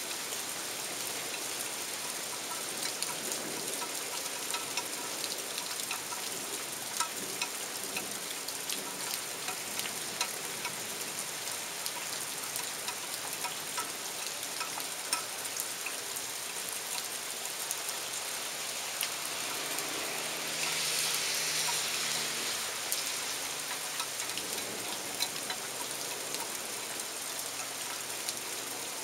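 Steady rain falling, with many sharp drips ticking close by. The downpour swells louder for a couple of seconds about two-thirds of the way in.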